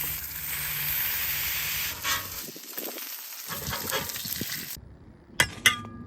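Ground beef sizzling on a hot flat-top griddle, with scattered scraping knocks. The sizzle cuts off suddenly, and two sharp clicks follow near the end.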